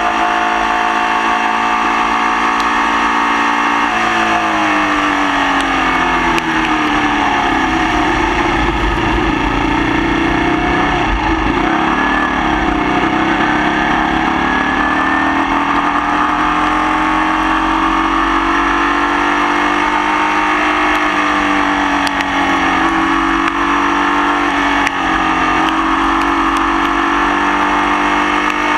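Formula Vee race car's Volkswagen air-cooled flat-four engine running under load with a misfire. Its pitch falls steadily from about four seconds in, bottoms out a few seconds later, then climbs again and holds steady.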